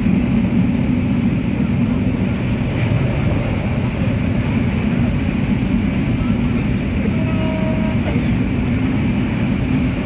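Steady rumble of a moving train, loud and unbroken, with the low roar of wheels on rail and a hiss above it.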